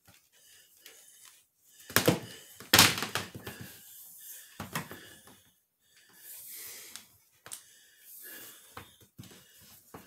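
An extension cord being handled and coiled by hand: soft rubbing and rustling, with two dull thunks about two and three seconds in and a lighter knock near five seconds.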